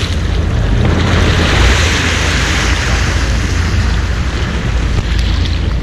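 Steady wind buffeting the microphone as a low rumble, over the wash of the sea and the boat.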